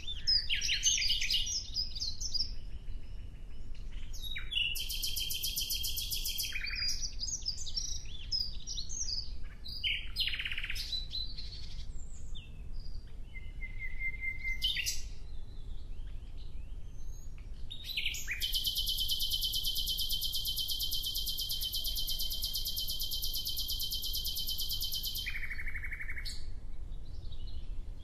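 Songbirds chirping and singing in short, high, warbled phrases, with a long, even, high buzzing trill starting about two-thirds of the way through and lasting about seven seconds.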